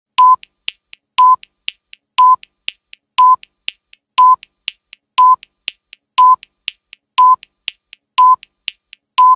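Countdown timer sound effect: a short beep once every second, ten in all, with a fainter tick halfway between each pair of beeps.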